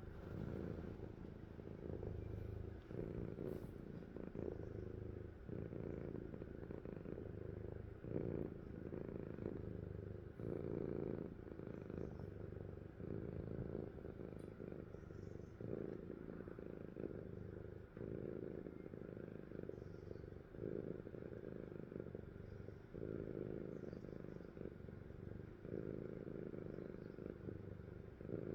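A sleeping cat purring steadily, the rumble swelling and easing with each breath in and out, about every one to two seconds.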